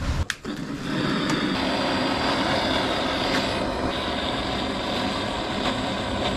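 Gas soldering torch burning with a steady hiss, heating a copper pipe joint for soft soldering; the flame noise starts about half a second in.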